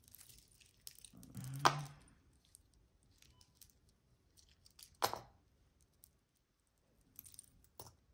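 Costume jewelry being handled: a few scattered light clicks and clinks, the sharpest about five seconds in, with smaller ticks near the end.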